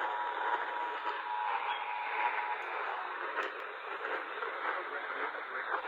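Hiss and static of a band-limited AM radio broadcast, with a faint steady two-note tone near 1 kHz that stops about two and a half seconds in.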